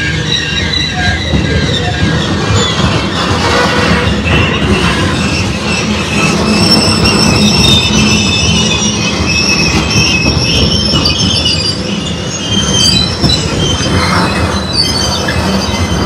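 Freight train tank cars rolling past close by, with a steady heavy rumble and clatter of steel wheels on the rails. High-pitched wheel squeal wavers and comes and goes over it.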